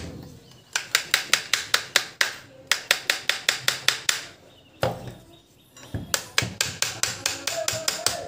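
Quick light hammer taps, about six a second, in three runs of several strikes, with a single knock midway.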